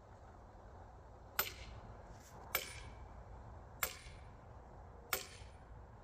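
Four sharp hammer blows, about 1.3 seconds apart, on a tool set in the split of a red oak log, each with a brief high ring as they drive the riving tool into the wood.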